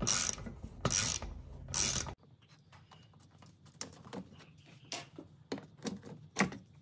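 Ratchet wrench turning out the undertray screws, a burst of ratchet clicks on each stroke about once a second. About two seconds in this gives way to quieter scattered clicks and snaps as plastic push-pin clips are worked out of the splash shield.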